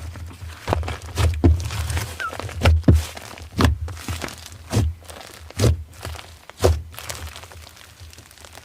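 Slime being handled: a series of short squishing, thudding strokes, roughly one a second.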